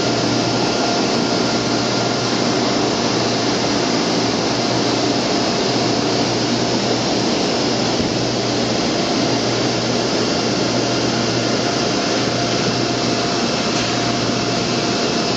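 Steady machine noise: a loud, even rushing hiss over a low hum, with a faint thin whine running through it.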